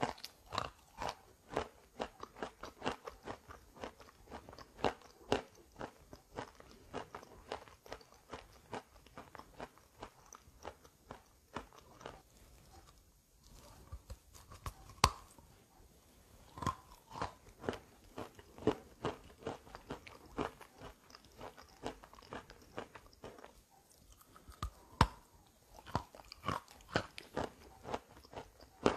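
Wet chalk coated in gray clay paste being bitten and chewed: a steady run of crisp crunches, with brief pauses and one sharp, loud bite about fifteen seconds in.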